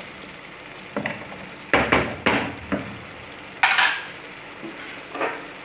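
A spatula stirring diced pumpkin in a watery sauce in a stone-coated nonstick frying pan, with a few scrapes and knocks against the pan over a steady sizzle of the food cooking.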